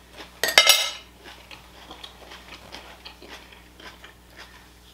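A metal fork clinks against a plate about half a second in, with a short ringing tail, followed by faint, scattered clicks of eating.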